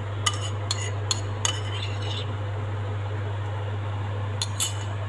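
Kitchen utensils clinking against a cooking pot and bowl as sliced lemongrass and ginger are put into the pot: several sharp clinks in the first second and a half, then two more shortly before the end, over a steady low hum.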